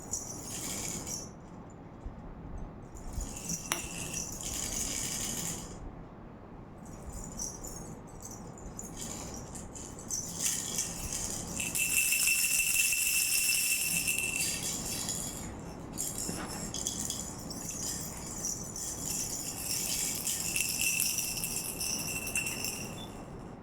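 A toy rattle shaken in irregular bursts, some short and some several seconds long, loudest about halfway through.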